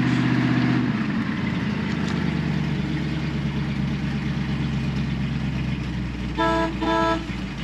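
1967 Ford Mustang's 390 big-block V8 running, its revs dropping back to a steady idle about a second in. Near the end the car horn is sounded twice in quick short beeps.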